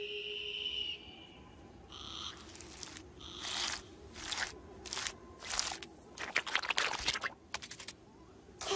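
Cartoon sound effects for a small lizard's quick movements. A brief high whistle-like tone comes first, then a string of short scuffing, rustling noises, each a fraction of a second long, spaced irregularly.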